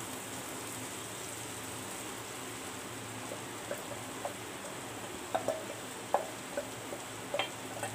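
Onion-tomato masala frying in a nonstick kadai with a faint, steady sizzle. Crumbled steamed chickpea batter is scraped into it from a steel bowl with a wooden spatula, giving a few soft scrapes and taps in the second half.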